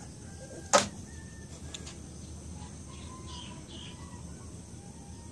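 One sharp slap about three quarters of a second in: a slipper smacked down on a concrete floor. Faint bird chirps behind it.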